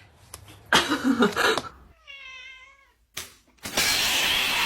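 Domestic cat meowing once, about two seconds in, between two noisy bursts, one about a second in and a longer one near the end.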